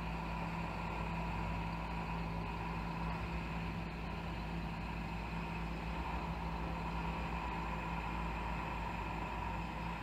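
Box truck's engine running steadily at low revs as it backs slowly into a driveway, heard muffled through a closed window.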